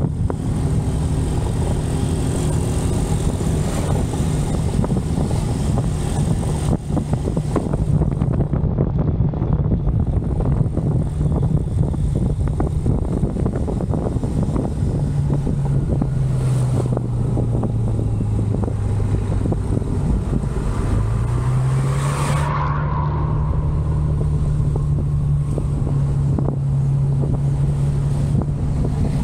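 Motorcycle engine running at road speed, with wind rushing over the microphone. About halfway through the engine note sinks as the bike slows, then climbs again as it accelerates, and a short louder burst of noise follows soon after.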